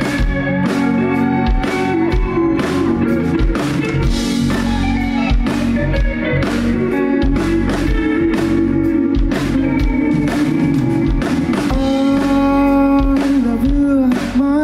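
Live rock band music: electric guitar playing over a steady drum-kit beat.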